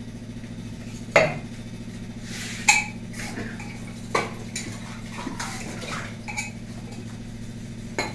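Stainless-steel kitchen utensils clinking and knocking: a few separate sharp strikes of steel pots, plates and bowls, the loudest about a second in, over a steady low hum.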